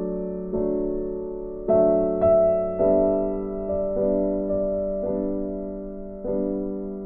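Background music: slow, gentle piano chords, each struck and left to fade before the next.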